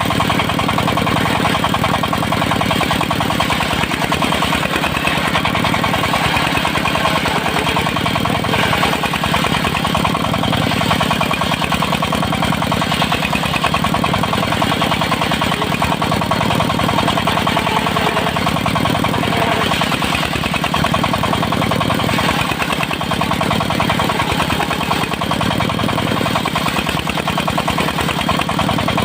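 The engine of a portable circular sawmill running steadily at an even speed.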